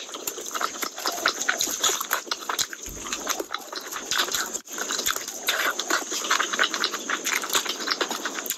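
Close-miked, wet chewing and lip-smacking of a person eating curry-soaked rice and chicken by hand: a dense run of small smacks and clicks.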